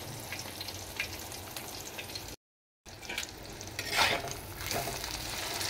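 An egg frying in hot oil on a flat tawa, with steady sizzling and small crackles. The sound cuts out completely for about half a second midway. About four seconds in, a metal spatula scrapes under the egg and the sizzle briefly gets louder.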